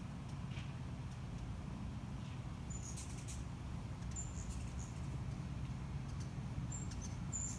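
Hummingbirds giving a handful of short, high squeaky chip calls from about three seconds in, over a steady low hum.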